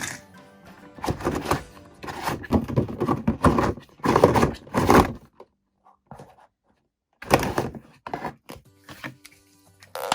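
Hands handling small plastic toy parts and a plastic capsule, with rustling and knocking for a few seconds. A brief silence follows, then more short knocks.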